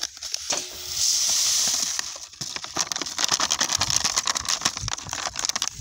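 Onion seed and its plastic packet being handled: a steady pouring hiss about a second in, lasting about a second, then dense crackling and rattling.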